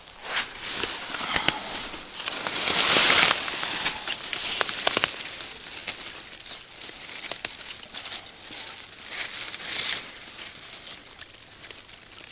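Irregular rustling and crackling as someone scrambles down a dry bank, loudest about three seconds in.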